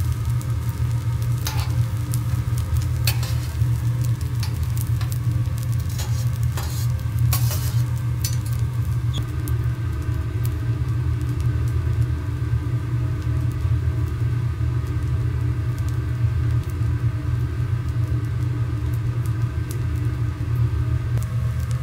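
Fried rice sizzling on a teppanyaki iron griddle, with sharp clicks and scrapes of metal spatulas on the plate, thickest in the first third, over a steady low hum.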